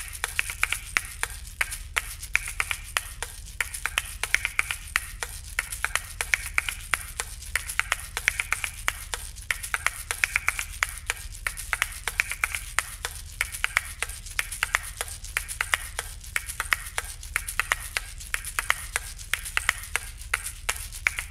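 Soundtrack of rapid, crisp clicks with short pinging tones, keeping a steady pulse throughout.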